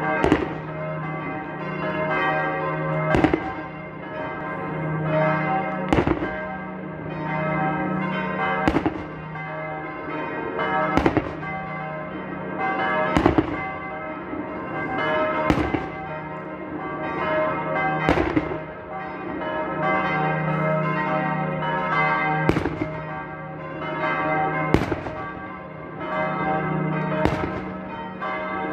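Church bells pealing steadily, with loud black-powder salute shots from the Christmas shooters (Böller) going off one at a time, about every two and a half seconds.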